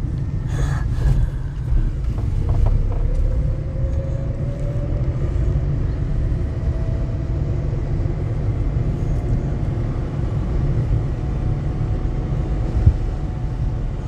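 Car driving slowly on a paved street, heard from inside the cabin: a steady low rumble of engine and tyres, with one brief thump near the end.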